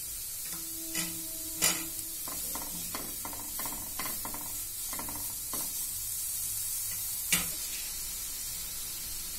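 Grated carrots sizzling in ghee in a nonstick frying pan while a wooden spatula stirs them, working in a lump of jaggery, with a run of light scrapes and knocks against the pan. Two sharper clicks stand out, about one and a half seconds in and near the end.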